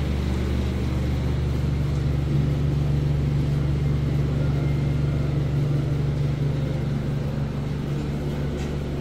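A steady low mechanical hum with a constant pitch.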